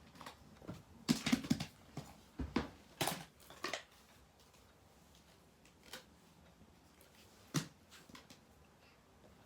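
Fidget toys being handled: a quick run of clicks and plastic rustles in the first few seconds, then one more sharp click near the end.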